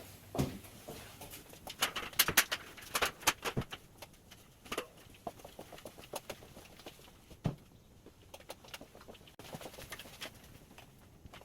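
Scattered clicks and knocks from hands-on installation work, with a dense run of sharp ones about two to four seconds in and another few near the end.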